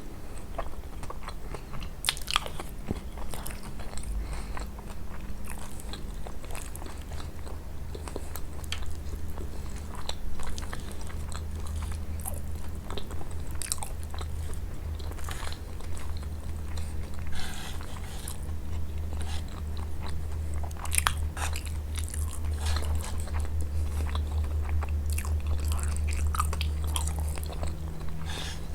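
Close-miked biting and chewing of kunafa, the crisp shredded pastry giving irregular small crunches and wet mouth clicks, over a steady low hum.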